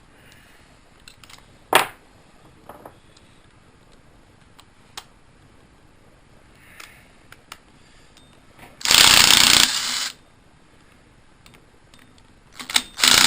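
Cordless impact wrench hammering in two bursts of about a second each, the first about nine seconds in and the second near the end, each easing off partway through. Light metal clinks of tools and parts come before them.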